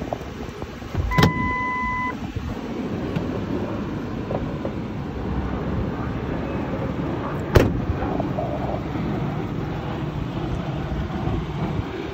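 Ford F-150 pickup idling steadily. About a second in there is a click and then an electronic beep about a second long. About seven and a half seconds in comes a sharp bang as the driver's door slams shut.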